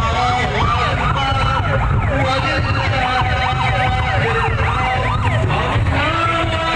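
Several sirens wailing at once, each sweeping rapidly up and down about twice a second, over a loud steady low rumble. The sweeping stops near the end and steady held tones take over.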